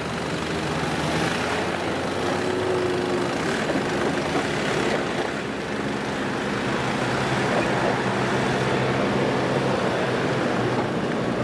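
Four-wheel-drive wagon's engine running with a steady note as the vehicle crawls slowly through a deep sandy rut, under a steady rushing noise.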